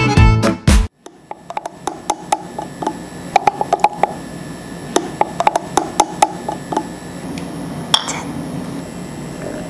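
Violin music cuts off about a second in. A metal spoon then clinks over and over against a glass jar as a drink is stirred. Near the end two glass jars clink together once in a toast, with a short ring.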